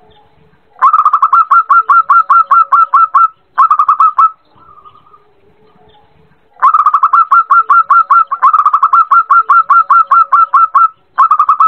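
Zebra dove giving its call: two long runs of quick, evenly spaced cooing notes, about six a second, each followed by a short burst. The uploader presents it as a female calling to a male, used as a lure to set caged males singing.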